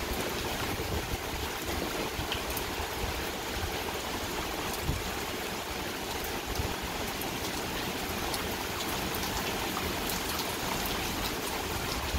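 Steady rain falling in a thunderstorm, a constant hiss with scattered sharp drop ticks.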